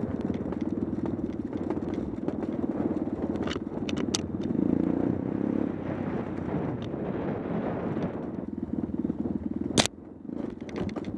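Dirt bike engine running steadily under throttle with a fast, even firing pulse. Near the end a single sharp knock sounds, and the engine noise drops away right after it.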